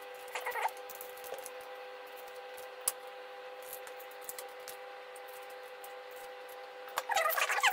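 Kitchen knife cutting and scraping the seeds out of a red bell pepper over a plastic colander: faint slicing and scraping with one sharp click about three seconds in, over a steady hum. A louder wavering pitched sound comes in briefly at the start and again near the end.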